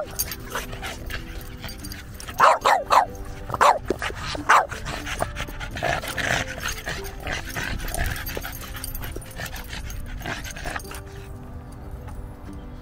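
A small dog barking: a quick run of several barks about two and a half seconds in, then single barks about a second apart.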